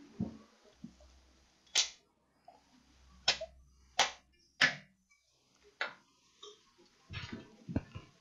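Handling of a laptop charger's plug and cable: five sharp clicks spaced roughly half a second to a second apart, with a few dull knocks near the start and near the end.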